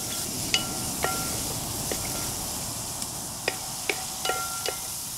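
Wooden spatula stirring sliced shallots in a wide metal pan, knocking against the pan about eight times so that the metal rings briefly with each knock, more often in the second half; under it the shallots sizzle steadily as they fry.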